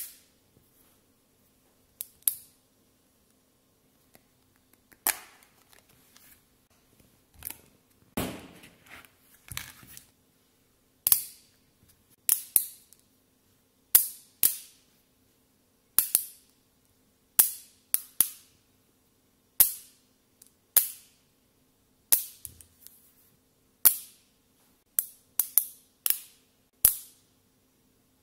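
10 mm neodymium magnetic balls snapping together with sharp metallic clicks, one every second or two and quicker toward the end, as triangular clusters are joined onto a sculpture. About a third of the way in, a longer clatter as the balls shift against each other.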